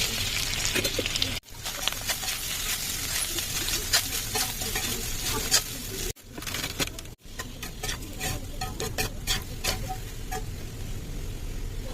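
Food sizzling as it fries in a pan while a spoon stirs it, with many small clicks of the spoon against the pan. The sound breaks off abruptly a few times, about a second and a half, six and seven seconds in, as if cut together from short clips.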